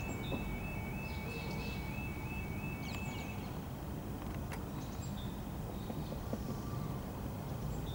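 Level crossing audible alarm sounding its two-pitch alternating warning as the barriers come down, stopping a little over three seconds in. Birds chirp over a steady low rumble.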